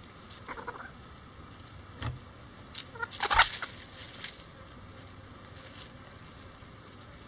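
Bantam chickens calling and clucking at close range in a few short, scattered notes. There is a soft thump about two seconds in, and the loudest call comes about three seconds in.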